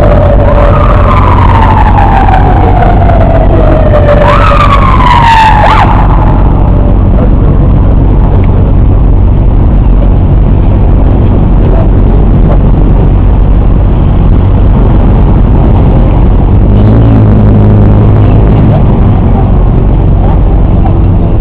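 An emergency vehicle's siren wailing in slow sweeps that fall in pitch, with one quick rise before the last fall; it stops about six seconds in. Underneath runs a loud, steady rumble, and a low drone rises briefly near the end.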